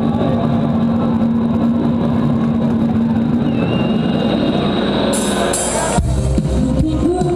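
Live band music from a concert: a held synthesizer drone over the band, then about six seconds in an abrupt change to a fuller mix with heavier bass and a woman singing.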